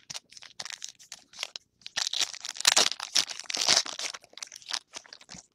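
Foil wrapper of a trading card pack being torn open and crinkled by hand: a run of irregular crackling rustles, sparse at first and densest in the middle.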